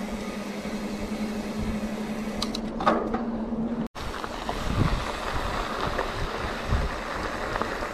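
Wind rushing over the camera as a mountain bike rolls fast down a paved road, with a steady low hum from the bike. About four seconds in the sound cuts off suddenly and picks up again with the bike rolling over a dirt pullout, wind noise and low bumps.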